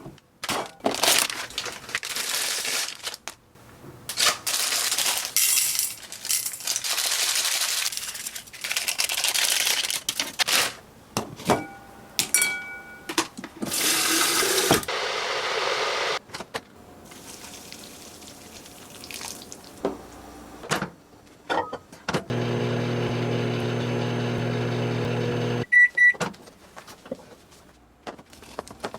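Rustling and handling noises while instant jajang noodles are prepared, with a few short electronic beeps near the middle. Later a microwave oven runs with a steady hum for about three seconds, then gives two short high beeps.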